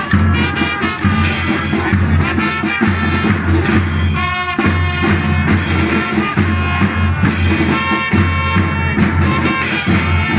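A children's drum and trumpet band playing a march-like tune: trumpets carry the melody over a steady beat of marching drums, bass drum and cymbals.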